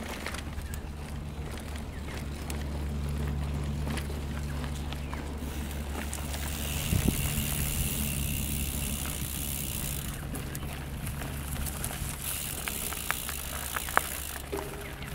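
Mountain bike riding along a dirt trail: tyre noise on dirt with scattered sharp clicks and rattles, the loudest about halfway through and near the end, over a steady low hum.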